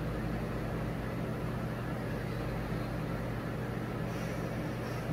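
Steady low mechanical hum with an even hiss over it, unchanging throughout, like a motor or fan running.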